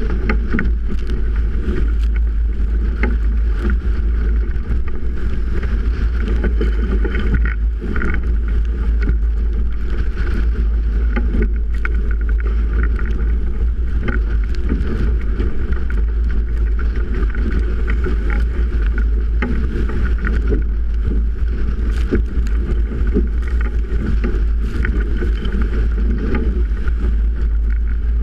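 Strong wind buffeting the camera microphone aboard a Melges 24 sailboat in 30-plus-knot winds, a steady loud rumble with many small splashes of spray and waves hitting the hull and deck.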